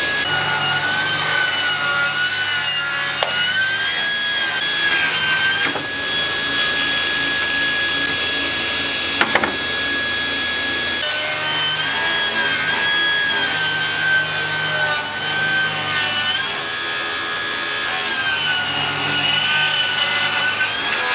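Table saw ripping black locust (robinia) offcuts into narrow strips. The blade's whine wavers and drops in pitch while it cuts, and steadies when the blade runs free, for several seconds in the middle and again near the end.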